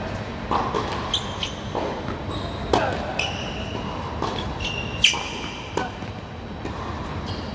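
Tennis rally on a hard court: racket strings hitting the ball a few seconds apart, the loudest strike about five seconds in, with ball bounces and short shoe squeaks on the court surface between shots.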